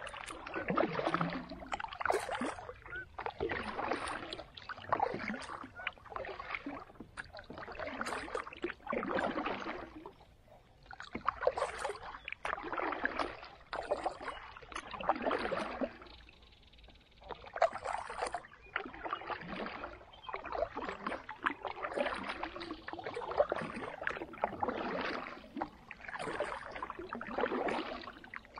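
Kayak paddle strokes dipping and pulling through calm water, with a splash about once a second, alternating side to side, pausing briefly twice.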